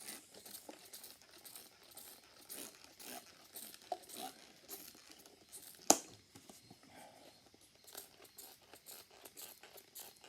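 Hand-pump spray bottle misting water onto the freshly routed wood surface in a string of short, faint hissing squirts, with one sharp click about six seconds in.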